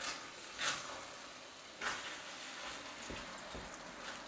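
A wooden spoon stirring thick risotto in a stainless steel pan, working in butter and grated Parmesan to bind it. There are three clear scraping strokes in the first two seconds, then softer ones, over a steady low hiss from the simmering rice.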